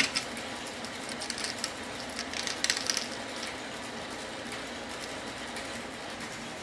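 Brass Linotype matrices clicking and clinking against one another and the metal matrix stick as they are pushed tight in it. The clicks come in short clusters in the first three seconds, over a steady hiss.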